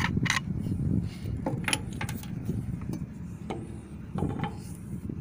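A handful of sharp metallic clicks and knocks as parts of a Yamaha outboard's water pump are handled, the impeller being worked on the driveshaft, over a steady low background rumble.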